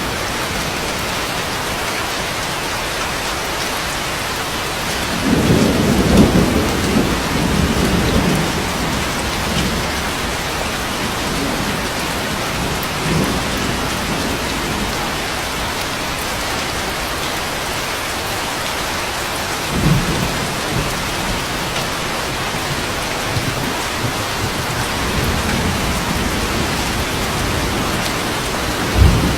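Steady rain falling, with thunder rumbling over it: a long roll about five seconds in lasting a few seconds, shorter rumbles later, and a brief sharp clap near the end.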